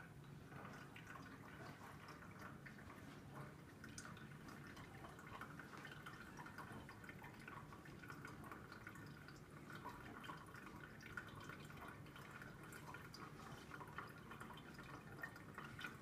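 Faint trickle of water running down a tube through a small water flow sensor, with light dripping throughout.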